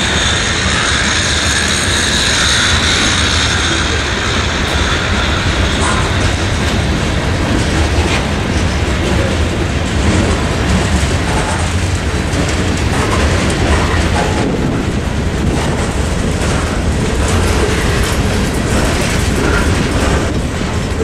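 Freight train's covered hopper cars rolling past at steady speed: a continuous low rumble with wheels clacking and knocking over the rail joints and crossing.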